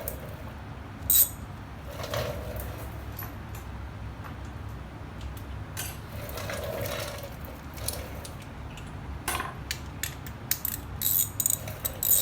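Metal brake caliper and pad hardware being handled: irregular clicks and light metallic rattles, with a sharp click about a second in and a quick run of clicks near the end.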